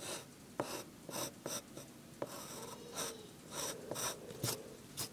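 Pencil scratching on lined paper in a series of short, irregular strokes as a head is sketched.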